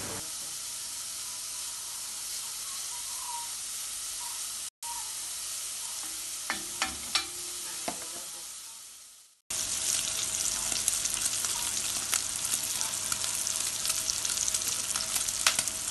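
Chopped bacon frying in a pot: a steady sizzle with a few light knocks about halfway through. After a short break the sizzle comes back louder and crackling with pops, as the fat renders out and the bacon crisps.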